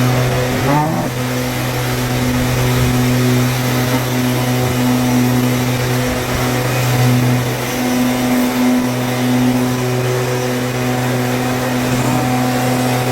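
Loud, steady engine drone with a low hum and a higher tone above it that hold level.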